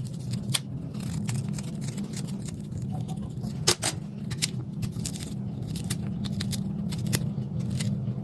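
Knife cutting and scraping out the core of a fruit or vegetable being hollowed out: a run of small, irregular clicks and scrapes over a steady low hum.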